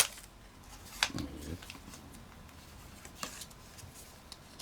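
Foil booster pack being handled and opened: a sharp click at the start, another click about a second in with a brief low hum, a fainter tick after about three seconds, and otherwise faint rustling.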